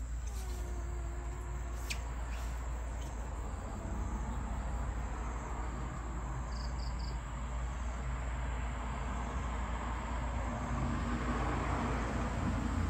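Steady low background rumble, with one faint falling whimper from a newborn puppy about a second in.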